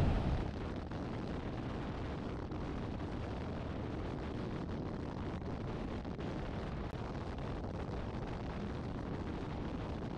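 Steady wind rumble on a microphone mounted outside a moving car, mixed with road noise, with no changes in level.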